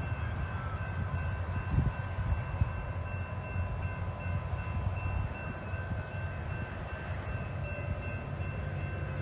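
Distant diesel railway locomotive running, a steady low rumble, with a few steady high-pitched tones held above it.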